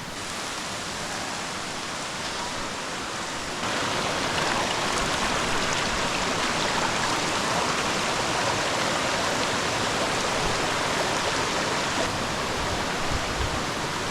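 Steady rush of running water, the sound of rain-swollen falls and stream; it steps up in level about three and a half seconds in.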